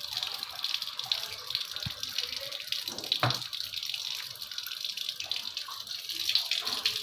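Water streaming from a water purifier's thin plastic output tube and splashing onto the floor as the activated carbon filter is flushed: a steady running-water hiss. A short knock sounds about three seconds in.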